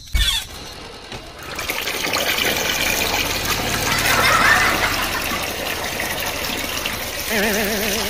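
Water gushing and splashing from a miniature hand pump's water line, starting about one and a half seconds in and building to a peak about halfway. A warbling, wavering tone comes in near the end.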